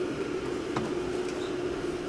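Steady background hum with hiss, and a faint click about three quarters of a second in.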